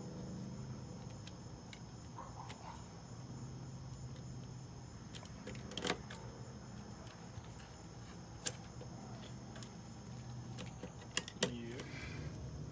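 A few sharp clicks from the buttons of a newly installed GFI (ground-fault) outlet being pressed as it is tested: one about six seconds in, one about two and a half seconds later, and two close together near the end, over a steady low hum.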